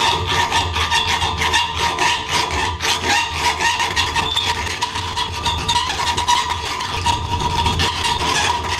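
Round steel file rasping back and forth inside the box-end ring of an old steel wrench clamped in a vise, flattening the inside surface of the ring. The rasping is continuous, with a steady high tone running through it.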